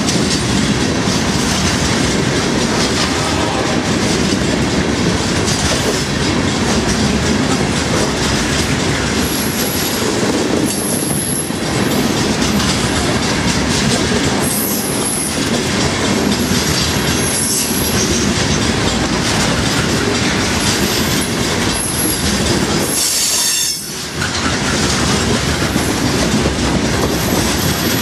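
Open-top wetrock hopper cars of a freight train rolling past close by, with the steady rumble and clatter of steel wheels on the rail. From about a third of the way in, short high-pitched wheel squeals come and go.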